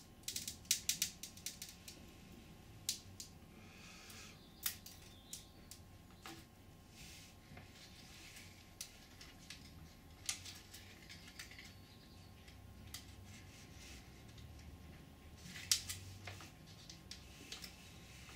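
Irregular small clicks, snaps and crackles from hand-working a cast foam wing skin free of its 3D-printed ABS mould and breaking off its thin flashing. The clicks come in clusters, with the loudest group near the end.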